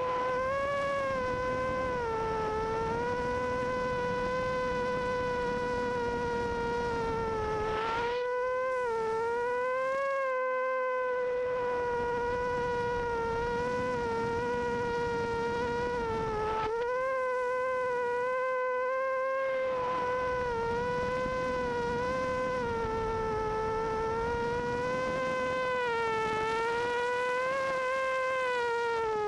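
Quadcopter motors and propellers buzzing in flight: a steady high whine that wavers up and down in pitch with throttle changes, dropping away briefly a few times as the throttle is cut.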